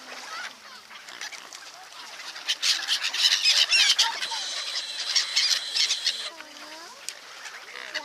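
A flock of gulls and mute swans calling over the water. About two and a half seconds in, the calls swell into loud, dense, high-pitched squabbling that lasts about four seconds, then drop back to scattered, lower calls.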